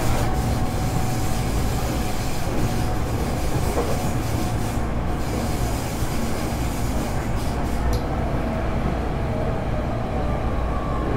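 Running sound heard inside a Hankyu 8300 series electric train car: a steady rumble of wheels on the track with some wheel squeal, and faint tones from the Toyo GTO-VVVF traction drive. The car's air conditioning is running.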